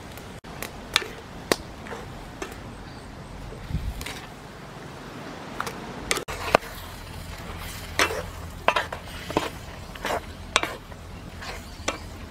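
A wooden spoon stirring squid in a clay pot, with irregular sharp clicks and knocks of the spoon against the pot.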